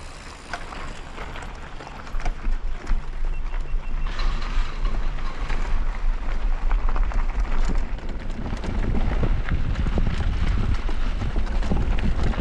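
Mountain bike riding fast down a dirt bike-park trail: tyres rolling over rough ground with a dense clatter of knocks and rattles from the bike over bumps, and a low rumble of wind on the microphone. It gets louder about two seconds in as speed picks up.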